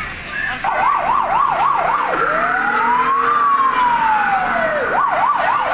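An electronic siren sounding loudly: a fast up-and-down yelp about four times a second, then one slow rise and fall over about two and a half seconds, then the fast yelp again near the end.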